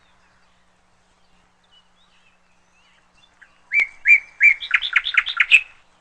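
A songbird sings one loud phrase of quick repeated notes over a held whistle about two-thirds of the way in, after a few seconds with only faint, distant chirps.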